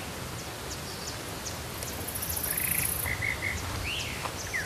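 Birds calling: about two and a half seconds in, a short buzzy note, then three quick notes and an upward-sweeping call. A high insect buzz sounds around two seconds in.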